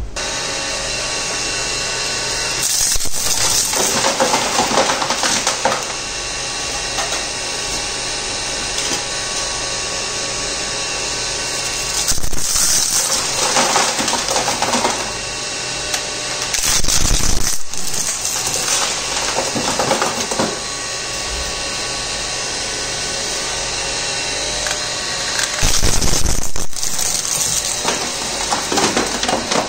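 Twin-shaft e-waste shredder (Raj Electricals DS4007) running, its toothed cutter discs turning with a steady motor-and-gearbox hum and whine. Several times it swells louder and noisier for a second or two as electronic waste is torn between the cutters.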